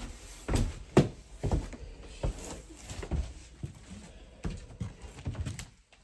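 Footsteps on a floor: a run of irregular thuds and knocks, one or two a second, the loudest about a second in.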